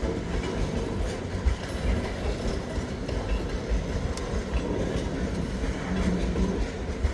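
Freight train cars rolling past: a steady low rumble with a few sharp clicks of the wheels on the rails.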